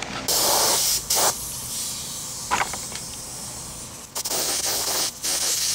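Compressed-air paint spray gun hissing in a few separate passes, short ones at first and then a longer spell near the end, misting light coats of clear coat.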